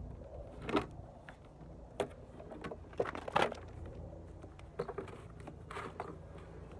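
Scattered knocks, clatters and rustles of scrap being handled and rummaged through in a dumpster, over a low steady hum.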